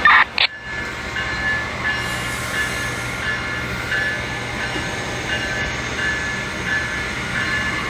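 Amtrak passenger train with two locomotives pulling out, its steady running noise carrying a bell-like tone that rings about twice a second. A short, very loud blast opens it.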